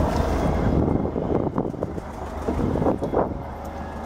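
Steady low hum of an idling engine, with wind buffeting the microphone in gusts from about one to three seconds in.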